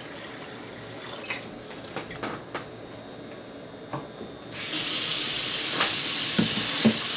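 A few light clicks and knocks of things being handled, then about two-thirds of the way in a kitchen tap is turned on and water runs steadily into the sink, with a couple of thumps under the flow near the end.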